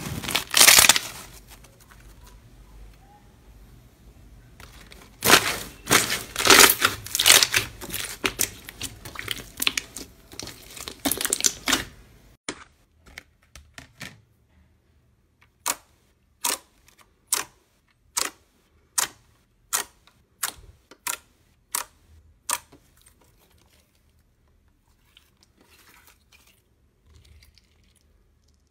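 Slime worked by hand: loud crackling, squelching bursts, then a long run of sharp separate clicking pops, about two a second, as clear slime is pressed in a bowl, ending in near quiet.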